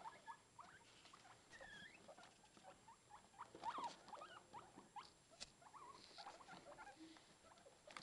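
Baby guinea pigs giving many faint, short squeaks and chirps that bend up and down in pitch, in quick succession and busiest about halfway through, with soft ticks and rustles among them.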